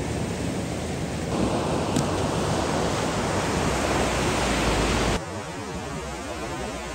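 Ocean surf breaking and washing up the beach, a steady rushing noise. It gets louder a little over a second in and drops off suddenly about five seconds in.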